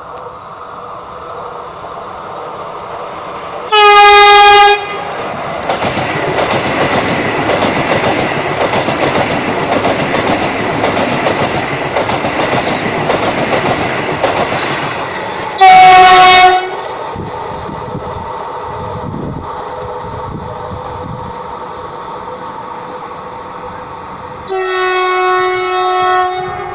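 Vande Bharat Express (Train 18) passing at speed on the adjacent track, its wheels on the rails making a loud rushing rumble, while its horn sounds three loud blasts: one of about a second some four seconds in, another near the middle, and a longer one of about two seconds near the end.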